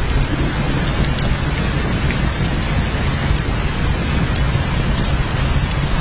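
Steady heavy rain, a dense even hiss over a continuous deep low rumble, with scattered sharp ticks of individual drops.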